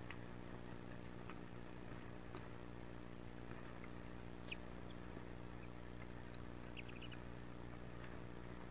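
Steady low electrical hum, with faint high peeps from wood duck ducklings: one about halfway through and a quick run of three or four a couple of seconds later. Faint scratchy ticks come from the ducklings shifting in the nest box.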